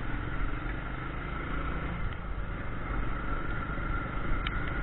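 Motorcycle running steadily while being ridden, with a continuous low rumble.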